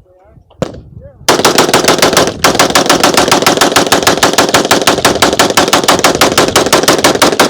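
Automatic gunfire: a long string of rapid, evenly spaced shots starting about a second in, with a brief break about two seconds in before it carries on.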